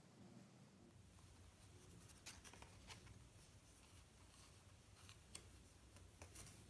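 Faint rustling and light scratches of hands handling embroidery floss over paper chart sheets, a few short rustles over a low steady hum.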